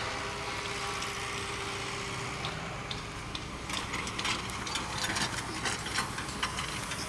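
Diesel engine of heavy construction machinery running steadily. From about halfway through, a string of short sharp metallic clicks and knocks comes in over it.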